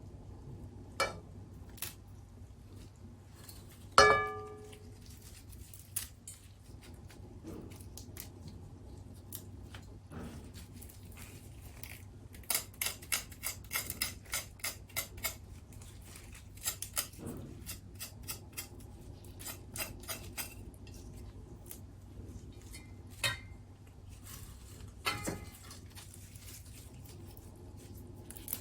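Kitchen prep sounds: utensils and dishes being handled, with scattered taps and clicks. One loud ringing clink, like a metal or ceramic bowl being knocked, comes about four seconds in. A quick run of clicks follows about halfway through.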